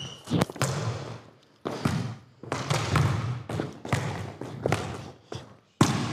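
Basketballs bouncing on a hard indoor court floor: several separate thuds, each ringing out in the gym's echo.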